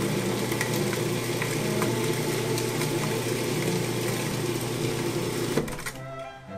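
Food processor with an S-shaped blade running steadily, chopping a thick basil pesto mix; the motor cuts off about five and a half seconds in.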